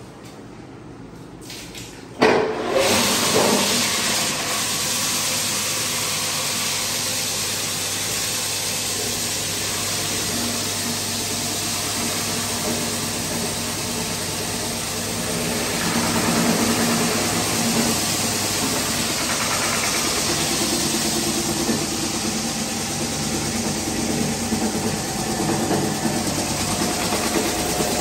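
Floor-grinding machine starting up about two seconds in, then running steadily as its abrasive stones grind a terrazzo (chips) floor.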